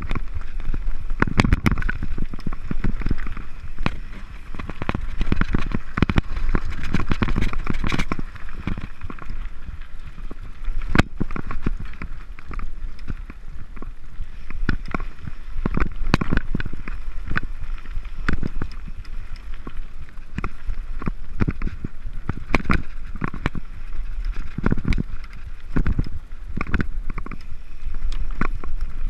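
Mountain bike running fast downhill over rough dirt and stones: tyres on gravel and frequent sharp knocks and rattles from the bike as it hits rocks. A steady low wind rumble on the microphone lies under it.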